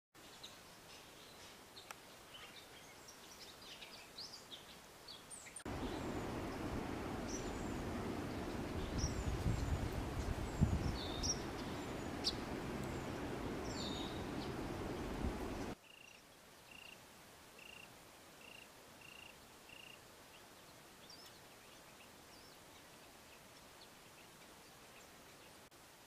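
Small birds chirping outdoors with short high calls. For about ten seconds in the middle a louder steady rush of outdoor noise covers them. A little past halfway a bird gives a run of seven short, even notes, about two a second.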